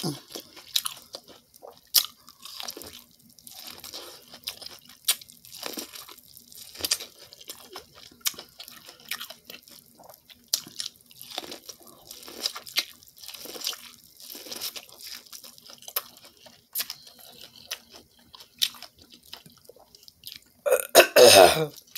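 Close-miked eating of corn on the cob: crunchy bites, chewing and wet mouth clicks at irregular intervals. A brief voice sound comes near the end.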